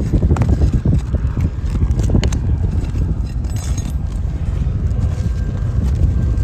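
Wind buffeting the microphone in a steady low rumble, with a few short clicks and scrapes of hand work under asphalt roof shingles.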